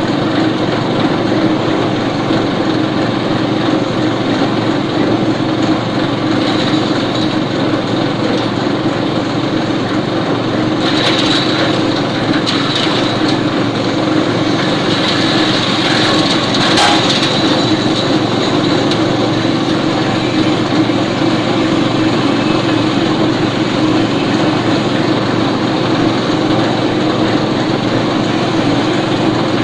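Mini compost shredder running with a steady drone. In the middle stretch, crackling and snapping as leafy green stems are fed into the hopper and chopped.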